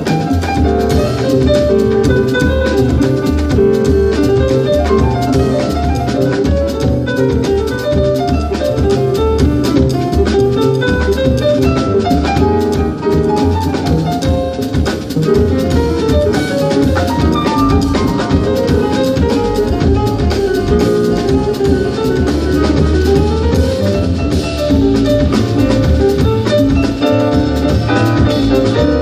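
Jazz played on grand piano, upright double bass and drum kit, with running piano lines over the bass and drums.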